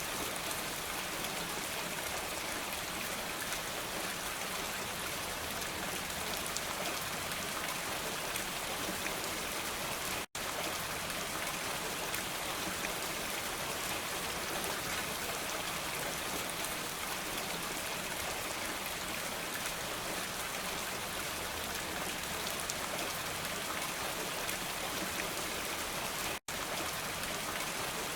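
Steady rain falling, an even, dense hiss with no changes in strength. It cuts out to silence for a split second twice, about ten seconds in and near the end.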